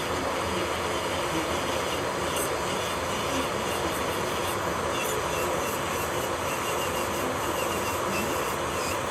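Electric nail-salon equipment running steadily: a continuous whirring hum of a nail drill and dust collector at work on the nails.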